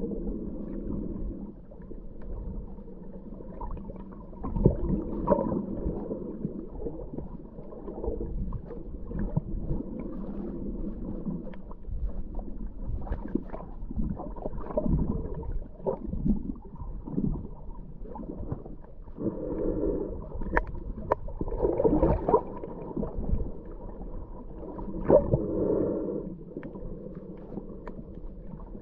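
Muffled underwater sound picked up through a submerged camera: water gurgling and moving past the housing, with scattered light knocks and louder gurgles three times in the second half.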